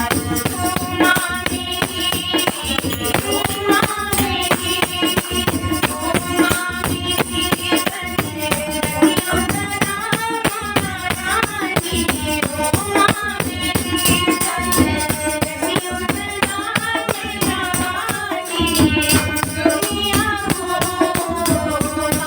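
Devotional bhajan music: a melody over steady shaken percussion of rattles or tambourine-like jingles.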